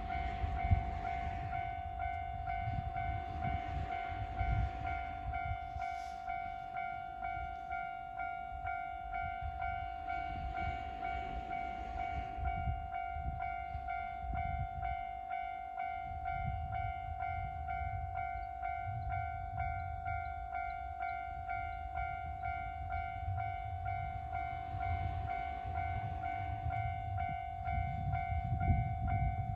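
Japanese railway level-crossing warning bell ringing over and over in a steady repeating tone, over the low rumble of a train on the JR Yamatoji Line passing through the crossing.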